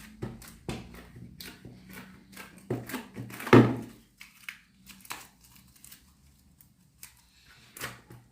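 Slime being mixed and scraped out of a pot with a spoon: quick taps and scrapes against the container, with one louder thunk about three and a half seconds in, after which the handling goes much quieter.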